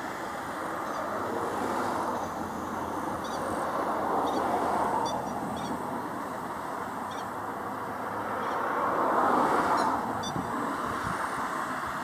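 Grey-headed lapwings giving short, sharp, high calls in small scattered clusters, over a steady rushing background that swells twice.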